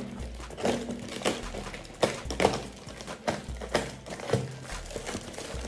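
Tape-wrapped cardboard box being cut and torn open with a utility knife: irregular crackling, tearing and crinkling of cardboard and plastic film, several sharp cracks a second.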